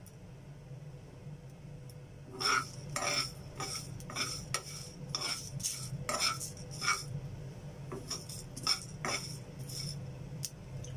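Steel spoon scraping and clinking against a non-stick frying pan as whole spices are stirred while dry-roasting, in repeated strokes starting about two seconds in and easing off near the end.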